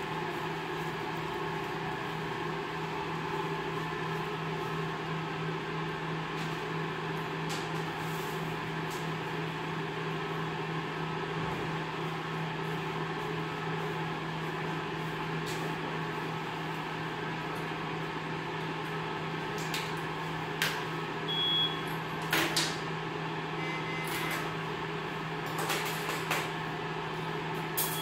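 A steady machine hum runs throughout. In the second half come a few sharp clicks and knocks and two brief high beeps, the last near the end.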